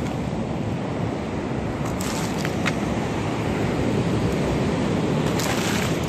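Steady sound of surf washing onto the beach, with wind rumbling on the microphone. A few brief clicks come about two seconds in and again near the end.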